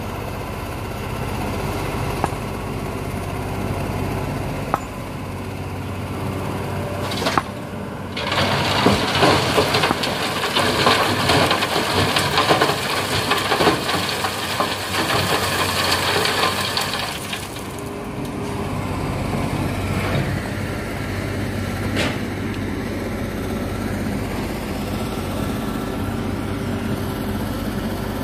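Heavy diesel machinery running steadily. From about 8 s to 17 s comes a loud rushing rattle as a bucketful of sand and gravel pours from a Komatsu excavator's bucket into a dump truck's bed, with a few sharp knocks.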